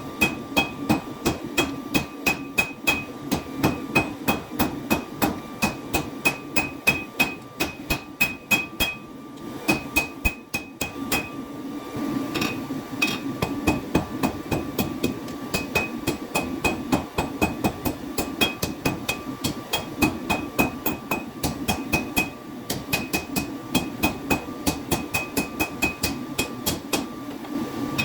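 Hammer strikes on hot steel over an anvil as a knife blade is forged, about three blows a second, each with a short metallic ring. The hammering pauses briefly twice. A steady hum runs underneath.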